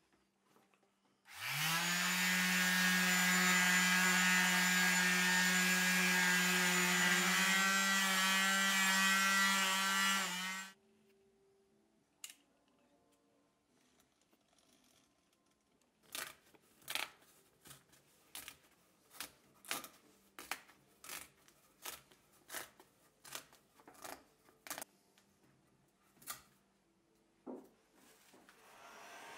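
An electric sander spins up with a quick rising whine, runs steadily for about nine seconds on the cricket bat's willow, then winds down and stops. After a pause, a utility knife is drawn against a steel rule across the bat face in a series of short, sharp cutting strokes, about one or two a second.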